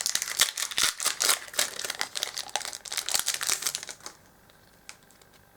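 Foil wrapper of a Yu-Gi-Oh! booster pack crinkling as it is handled, in a fast run of crackles that stops about four seconds in.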